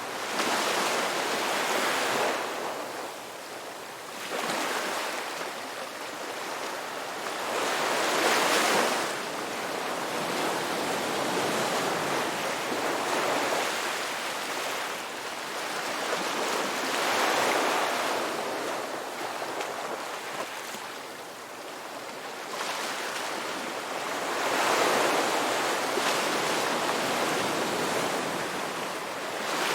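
Ocean waves breaking, the surf noise swelling and easing about every eight seconds.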